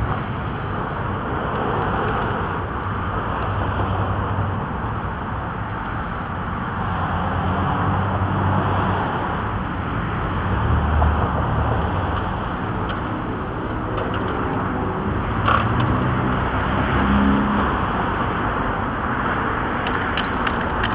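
Road traffic: cars running and passing, a steady rumble that swells and fades, with a few brief clicks about two-thirds of the way through and near the end.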